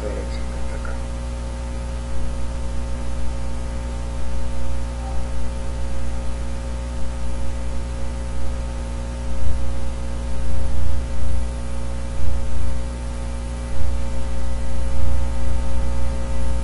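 Steady electrical mains hum with hiss from the recording microphone. The lowest part of the hum swells louder in uneven pulses through the second half.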